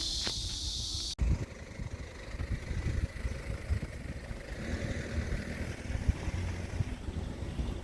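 A steady high hiss that stops at an abrupt cut about a second in, followed by an uneven low rumble like a running vehicle or traffic.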